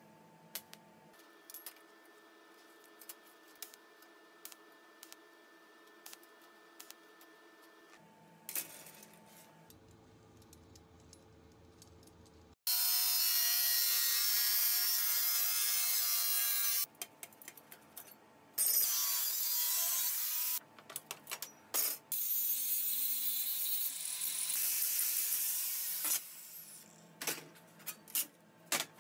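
Angle grinder with a thin cutting disc slicing through a stainless steel sheet: a loud, high, even cutting noise that starts about halfway through and comes in three runs of a few seconds each, with short breaks between them.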